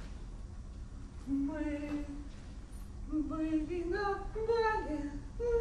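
A woman's voice singing a slow melody of held notes that climbs in pitch, starting about a second in, over a faint low hum.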